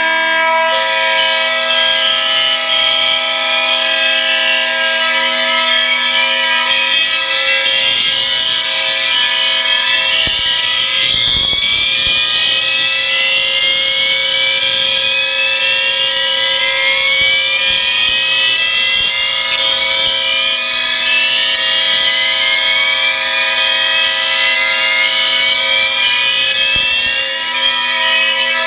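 A home-wired fire alarm system in full alarm: many fire alarm horns and sounders going at once. Steady horn tones are layered with repeated rising whoop sweeps, loud throughout.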